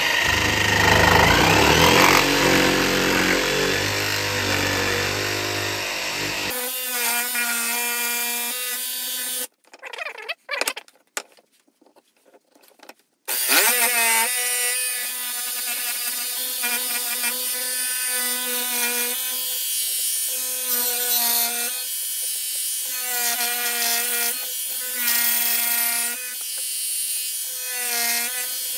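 Makita 18V cordless jigsaw cutting through a wooden board, sawing out a star shape from a drilled starter hole. About a third of the way in the saw stops for a few seconds of light knocks as the piece is handled, then runs again with a steady whine that shifts in pitch as it cuts.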